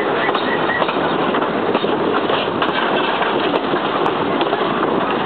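Train running along the track: a steady rumble and rattle of the rolling cars, with a few faint clicks.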